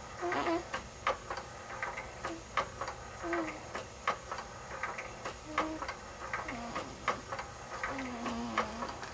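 A sleeping baby making small noises: soft, irregularly spaced clicks and brief low hums, with a longer falling hum near the end.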